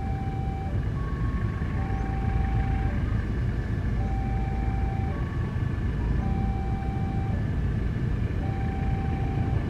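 KAI CC 201 diesel-electric locomotive rumbling steadily as it slowly hauls a passenger train in. Behind it, a two-note electronic warning signal alternates, each note about a second long.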